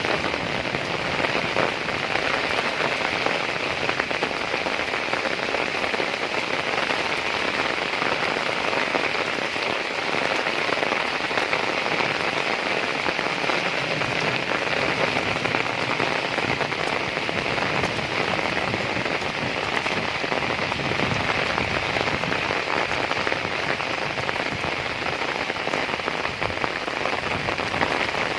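Heavy rain falling steadily, a dense even patter of drops with no let-up.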